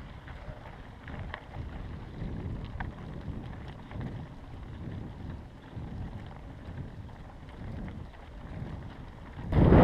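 Wind buffeting the microphone, a low uneven rumble with a few faint clicks. Near the end it jumps suddenly to a much louder rushing noise.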